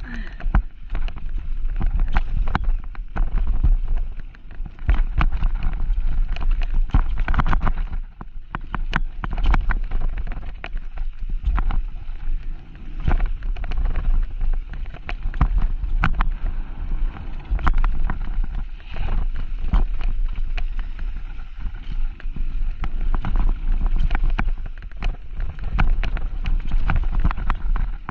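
Mountain bike riding down a bike-park trail: wind buffeting the microphone, with frequent sharp knocks and rattles from the bike running over the ground.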